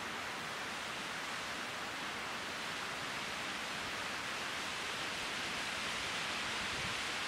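Steady, even hiss of outdoor noise with no distinct events, strongest in the upper-middle range.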